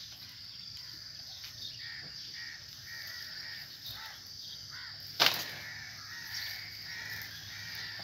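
Crows cawing repeatedly over a steady high-pitched background drone, with one sharp crack about five seconds in.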